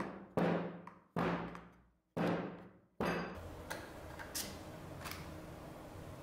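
Metal baking pan full of brownie batter rapped down on the counter three times, each knock ringing briefly. After about three seconds only a faint steady hiss with a few light clicks remains.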